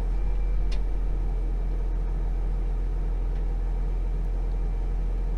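Tractor engine running steadily at low revs, a low even drone, with a single click about a second in.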